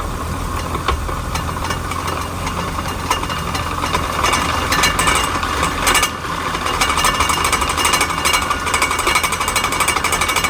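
A car's damaged differential gears running: a steady whine over a low hum, with a rapid rattling clatter that grows denser and louder about four seconds in. It is the sound of gear teeth with eroded or damaged flanks.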